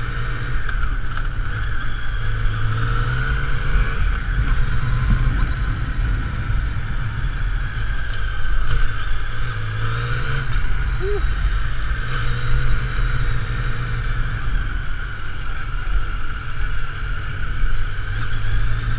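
Yamaha three-cylinder motorcycle engine running while the bike is ridden, its pitch rising and falling a few times with the throttle.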